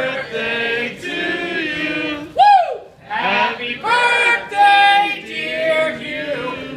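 Voices singing loudly together, with a loud whooping shout that rises and falls about two and a half seconds in.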